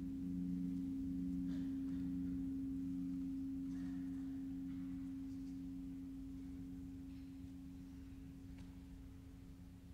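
Large orchestral gong ringing on: two low hum-like tones, the lower one pulsing slowly, fading gradually. A few faint clicks sound over it.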